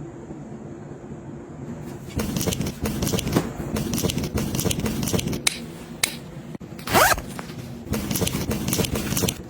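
A bag's zipper being worked, with scraping and handling noise and many small clicks, and one quick rising zip about seven seconds in.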